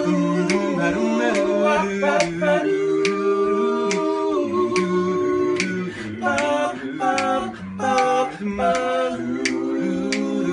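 Male a cappella vocal group singing doo-wop in close harmony, the voices holding chords together, with finger snaps keeping the beat.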